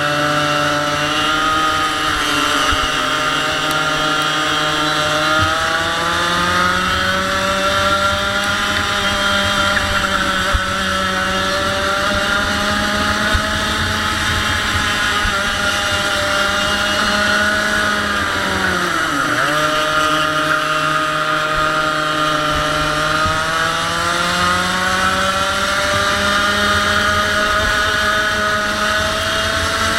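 A 100cc two-stroke kart engine running hard at high revs, its pitch slowly rising and easing off in turn; about two-thirds of the way through it drops sharply, then climbs again.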